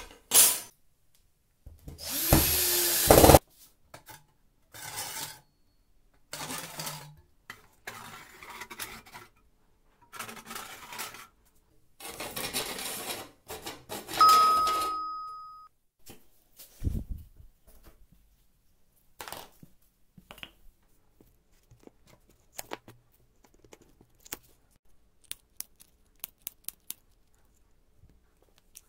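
Felt-tip marker scratching over OSB board in about six strokes of a second or so each, drawing circles with a perforated steel strip as a compass. Before the strokes there is a loud rushing burst with a rising hum; a clear ding rings out and fades about halfway through, and light clicks and taps follow near the end.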